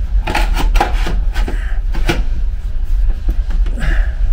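Irregular clicks and knocks of hard objects being handled, over a steady low rumble.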